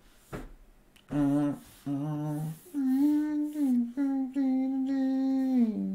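A lone voice humming a slow tune with no accompaniment: four held notes, each phrase sliding down in pitch at its end.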